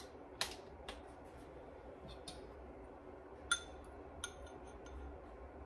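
A metal utensil clinking and tapping against a ceramic bowl: about five light separate clicks, the two in the latter half ringing briefly.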